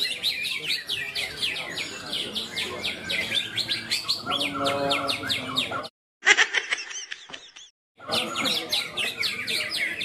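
Many caged greater green leafbirds (cucak ijo) singing at once in a songbird contest: a dense, continuous chatter of rapid, overlapping high chirps and whistles. The sound breaks off abruptly twice, briefly, near six and eight seconds.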